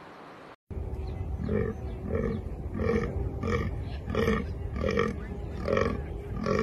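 Fallow deer buck groaning in the rut: a regular run of short, deep, belching grunts, about three every two seconds. It starts suddenly just under a second in, after a soft hiss.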